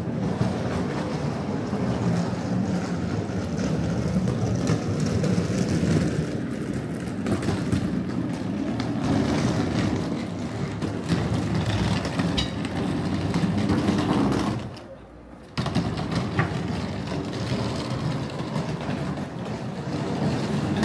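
Outdoor street ambience: a steady low rumble that drops away for about a second roughly three quarters of the way through, then returns abruptly.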